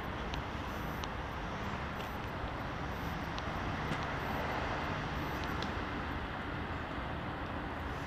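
Steady hum of distant road traffic, with a few faint ticks.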